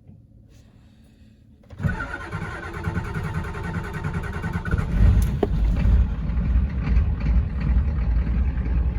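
A vehicle engine cranked by the starter for about three seconds, catching about five seconds in with a brief rise in revs, then running steadily.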